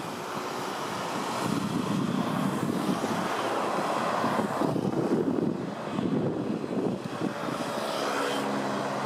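Cessna 208B Grand Caravan's single turboprop engine and propeller droning as it descends to land, mixed with gusty wind on the microphone. A steadier engine tone with several evenly spaced pitches comes through near the end.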